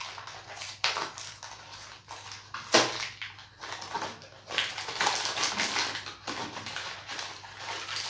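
Cardboard box of Oreo wafer rolls being opened and a plastic-wrapped packet pulled out: rustling and crinkling of card and plastic wrapper, with two sharp clicks in the first three seconds.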